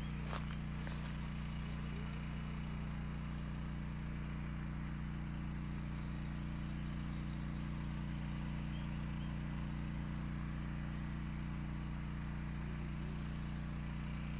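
Insects trilling steadily in a high band, pausing briefly about nine seconds in, with a few short high chirps scattered through, over a loud, even low hum.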